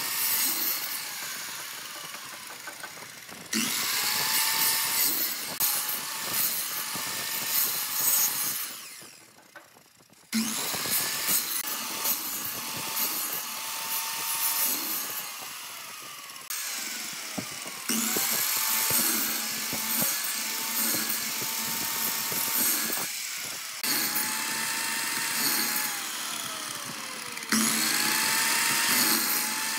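Sliding compound miter saw making repeated shallow cuts across a wooden board to notch it. Its motor whine rises each time it spins up and falls as it winds down, several times over, with loud cutting noise between and a short lull about a third of the way through.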